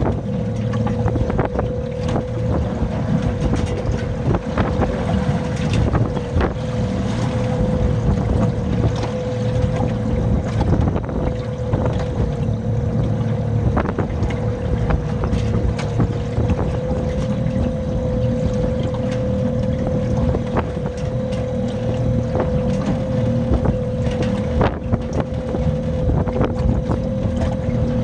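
Strong gusting wind buffeting the microphone, with a steady tone held at one pitch throughout, typical of wind singing in a sailboat's rigging, and irregular sharp clicks and taps.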